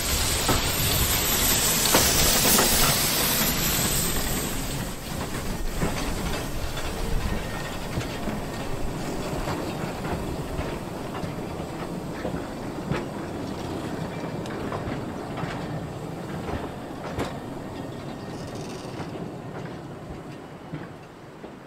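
Narrow-gauge steam train: a loud hiss of steam for the first few seconds, then a long run of wheel clicks over the rail joints, fading steadily as the train moves away.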